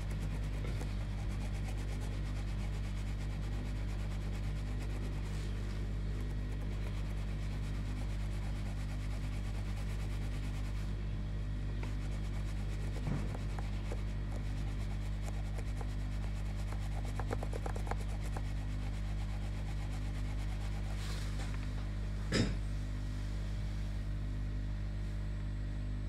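Cotton swab scrubbing the circuit board of a car remote key fob, a soft scratchy rubbing over a steady low hum, with one sharp click about two-thirds of the way through.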